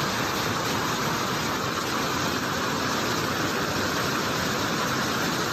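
Floodwater rushing in a steady, even flow of noise.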